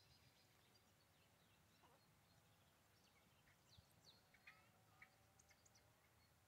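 Faint, short, sharp bird calls, several quick high notes clustered in the second half, over a low steady background rumble.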